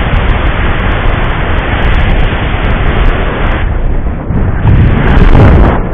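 Wind buffeting the handheld camera's microphone from the airflow of a tandem paraglider in flight, a loud rushing noise. It drops briefly just under four seconds in, then comes back in stronger gusts.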